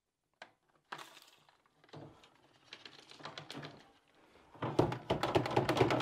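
Kobalt 24V stick vacuum's dust canister emptied over a trash can. A click as the release button opens the lid, then light rattles of debris falling out. From about four and a half seconds comes a rapid run of plastic taps and rattling as the canister is knocked to shake out the rest.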